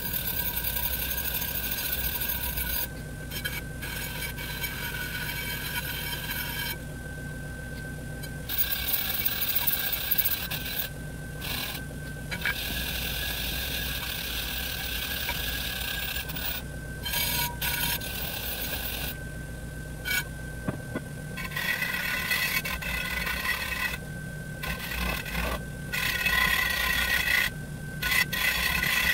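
A bench grinder's wire wheel runs with a steady motor hum and whine while scrubbing dirt and belt corrosion off the aluminum sheaves of an Arctic Cat roller secondary clutch. The scratchy brushing hiss comes and goes every few seconds as the part is pressed onto the wheel and lifted off.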